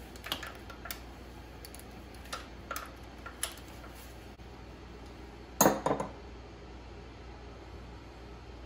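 Hand socket ratchet tightening the fuel pump bolts: a handful of scattered metal clicks and clinks, then a louder metallic clatter of several quick knocks a little before halfway.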